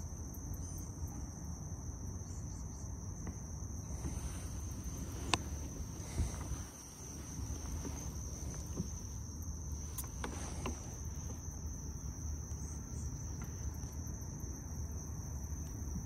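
Insects keeping up one steady high-pitched trill, over a low rumble, with a few sharp clicks around the middle.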